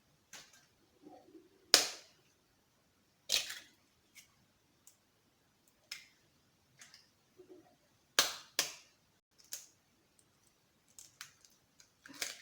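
Raw eggs being cracked open by hand: several sharp cracks of shell, with lighter clicks and taps of shell in between.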